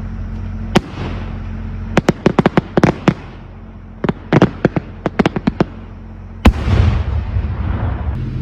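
Home-made Maltese-style cylinder firework shells going off: a single sharp bang about a second in, then two quick strings of cracks. About six and a half seconds in comes the loudest bang, followed by a crackling hiss.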